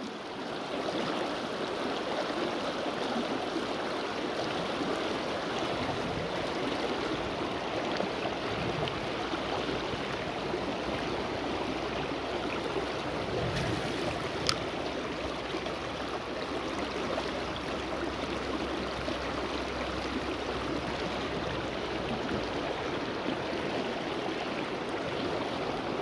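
Shallow river rushing over rocks, a steady roar of moving water, with one brief sharp click about halfway through.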